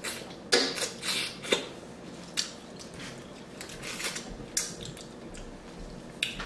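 Close-miked eating sounds: chewing and lip-smacking on king crab meat, heard as irregular short smacks and clicks.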